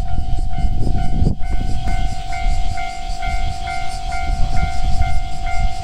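Railway level crossing alarm ringing its repeating bell about twice a second, with a train rumbling over the crossing. A single sharp knock comes about a second in.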